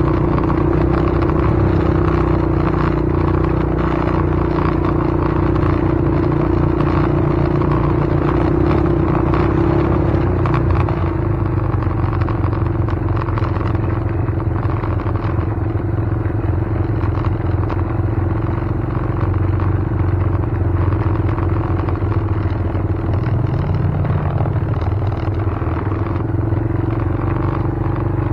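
A motor vehicle running steadily: a continuous low rumble under an unchanging hum.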